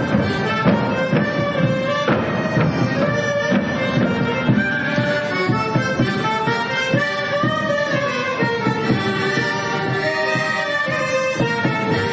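Traditional Polish folk dance music from a song-and-dance ensemble, running steadily.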